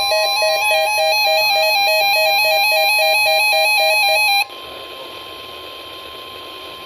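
Weather radio alert: a loud electronic alarm stepping rapidly back and forth between two pitches, over a steady single tone. The alarm cuts off sharply about four and a half seconds in, leaving the steady tone over radio static.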